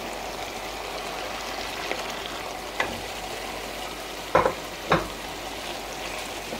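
Beef, onion and freshly added julienned carrots sizzling in oil in a metal kazan, stirred with a wooden spatula. The spatula knocks against the pot three times a little before and after halfway, the last two loudest.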